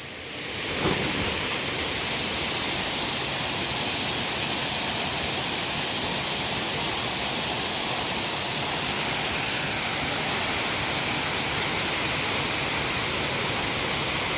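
Waterfall's steady rush of falling water, a constant roar that swells in over the first second.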